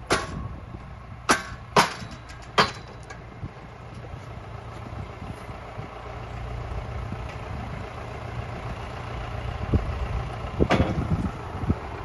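Valtra tractor engine running steadily at a low idle-like hum, with a few sharp knocks: three or four close together near the start and one more near the end.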